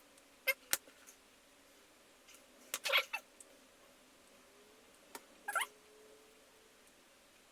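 A few light metallic clicks from a padlock's parts and small tools being handled. Near three seconds in and again about five and a half seconds in there is a short high squeak, the second one rising in pitch.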